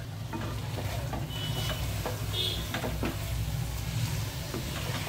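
Mutton frying in its spice masala in a non-stick kadai, stirred and scraped with a wooden spatula, giving a few light knocks. A steady low hum runs underneath.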